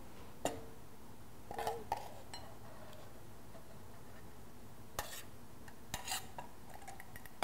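A metal spoon clinking and scraping against a small stainless-steel bowl as vinaigrette is scraped out of it, a few separate clinks with quiet between, one with a short ring.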